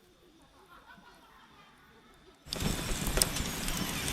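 Faint, distant voices, then about two and a half seconds in a sudden loud crackling and hissing of a campfire, with sharp pops scattered through it.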